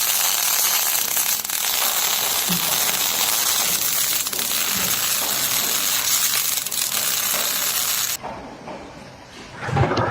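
A loud, steady hiss that cuts off suddenly about eight seconds in.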